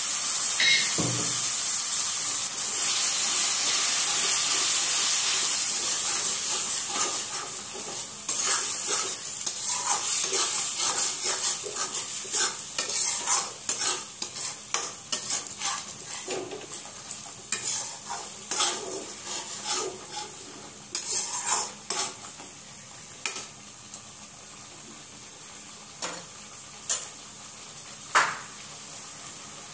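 Masala paste frying in hot oil in a kadai, with a loud sizzle that dies down over the first several seconds. A metal slotted spatula scrapes and clinks against the pan in irregular strokes as the paste is stirred.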